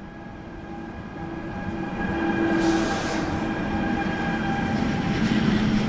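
Freight train passing, growing steadily louder as it approaches, its running noise carrying steady high squealing tones from the wheels. There is a brief hiss about two and a half seconds in.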